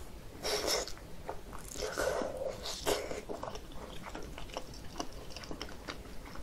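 Close-miked chewing of a thin-skinned, meat-filled dumpling (mandu): soft wet mouth sounds and small clicks, with a few louder chews in the first three seconds.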